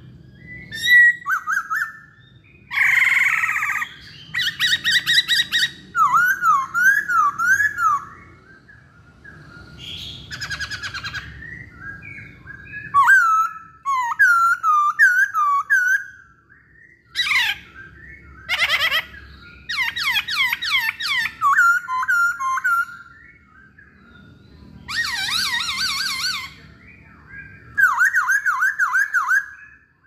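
Black-throated laughingthrush (poksay Hongkong) singing loudly in a busy run of phrases: looping, up-and-down whistled notes and fast sweeping calls, with a few harsher, rougher notes, each phrase lasting a second or two with short pauses between.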